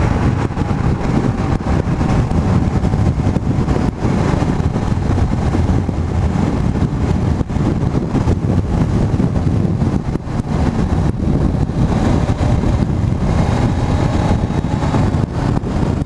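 Steady wind rushing over a motorcyclist's helmet microphone at highway speed, about 60 mph, with the Honda CBR500's engine and road noise underneath.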